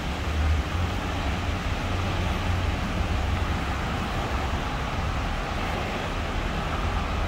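Fifth-generation Hong Kong Peak Tram funicular car running, a steady low rumble with a hiss over it.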